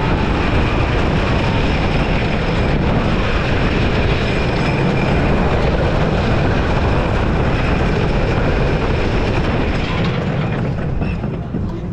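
Gravity Group Timberliner coaster train running at speed on a wooden roller coaster track: a loud, steady rumble and clatter of wheels on the wooden track, easing off in the last couple of seconds as the train slows.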